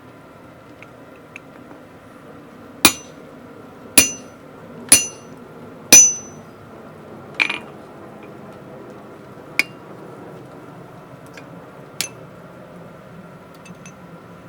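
Hand hammer striking a punch on hot steel bar against an anvil, punching a hole: four heavy blows about a second apart, each with a short metallic ring, then three lighter, spaced-out strikes. A steady low hum runs underneath.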